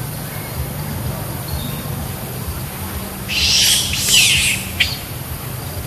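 Macaques screaming during a fight and chase: a run of harsh, high shrieks lasting about a second and a half, starting about three seconds in, then one short sharp shriek.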